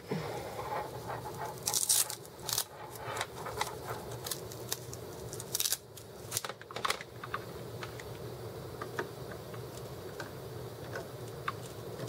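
A USB keyboard cable being handled and plugged into a USB hub: scrapes and a run of sharp clicks over the first seven seconds or so, then a few faint ticks.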